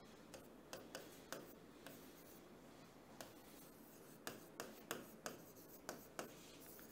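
Faint writing sounds: a string of small taps and scratches of a pen on a writing surface, coming closer together, about three a second, in the second half.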